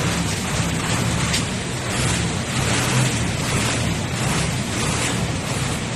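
Truck-mounted hydraulic crane at work: the truck's engine running steadily to drive the crane's hydraulics, with a steady rushing noise over it.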